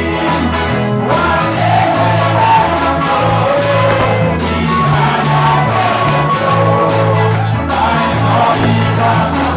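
Live church worship music: singing voices with band accompaniment, a bass line moving under it in steady held notes.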